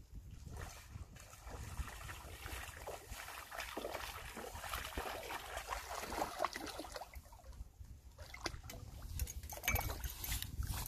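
A hooked Israeli carp thrashing at the surface on a pole-fishing line, splashing and churning the water in surges, with a short lull about three-quarters through.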